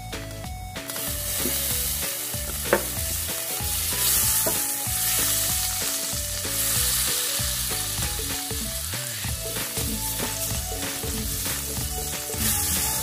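Soy sauce hitting hot sesame oil and crushed garlic in a stainless steel pan. It starts sizzling about a second in and keeps sizzling while a silicone spatula stirs it, with one sharp click about three seconds in.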